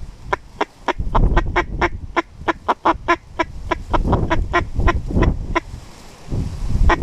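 A long, evenly spaced series of duck quacks, about four a second, stopping shortly before the end and starting again at the very end, over a low rumble.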